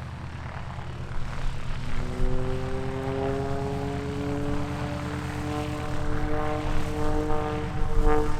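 Extra 330SC aerobatic monoplane's Lycoming six-cylinder engine and propeller buzzing steadily in flight. From about two seconds in, the engine note climbs slowly in pitch and grows louder.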